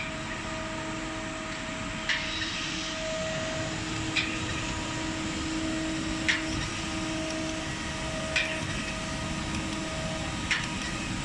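SGA4080AHD hydraulic surface grinder running, with a steady hum from the wheel spindle and hydraulics and a short knock about every two seconds as the reciprocating table reverses.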